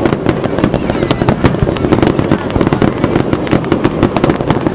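Fireworks display: aerial shells bursting one after another, a dense, continuous stream of bangs and crackles.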